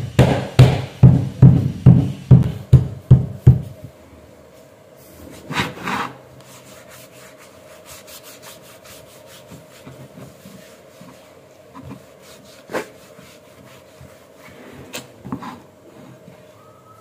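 About ten evenly spaced hammer taps, roughly three a second, seating the H-shaped wooden inlay key into the mitred corner joint. The taps stop after about three and a half seconds. A cloth then rubs and wipes over the wood, with a few light knocks.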